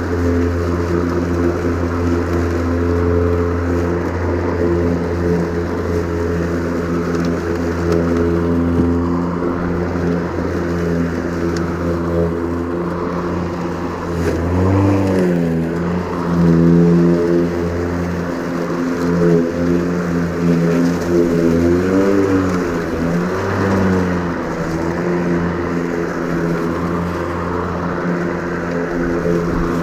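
Ryobi 40-volt 20-inch cordless lawn mower running, its electric motor and spinning blade giving a steady hum. The pitch dips and recovers twice, about halfway through and again several seconds later.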